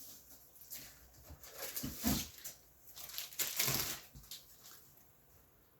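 Packaging rustling and crinkling in two main bursts as graded comic slabs are handled in their shipping box, with a few light knocks, dying away near the end.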